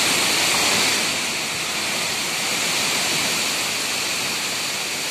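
Heavy rain pouring down in a strong windstorm, a steady dense hiss of rain with wind through the trees.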